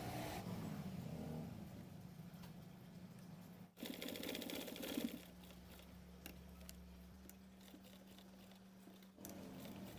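Sewing machine stitching through denim jeans in a rapid run of stitches over a steady low motor hum, with abrupt breaks between runs.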